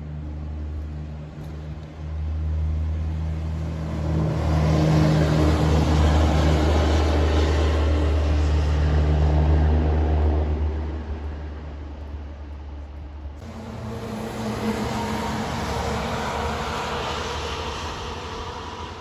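Coal trucks passing by. The low drone of a diesel engine and tyres builds over a few seconds, holds loud, then fades. After an abrupt break, a second truck approaches with a steady higher whine above its drone.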